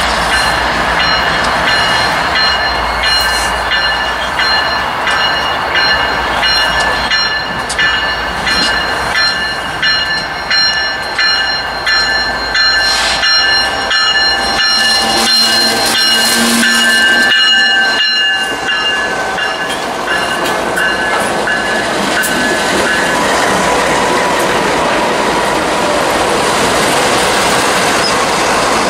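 Diesel-hauled BNSF freight train approaching and then rolling past close by, its locomotives and wheels running steadily. A steady high-pitched ringing tone sits over the train noise until about three-quarters of the way through.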